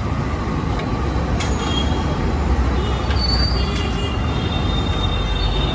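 Dal vadas deep-frying in a large iron kadai of hot oil, a steady sizzle, with a slotted steel ladle clinking against the pan a couple of times, over a steady low road-traffic rumble. A faint high squeal runs through the second half.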